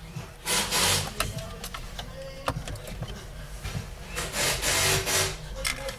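Plastic dashboard trim and tools scraping and rubbing against each other in two bursts, with scattered sharp clicks in between, as the center console is worked apart.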